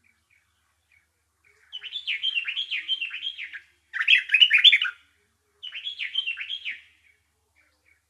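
Small songbird singing three short bursts of rapid chattering notes, the middle burst the loudest, with faint single chips between the bursts.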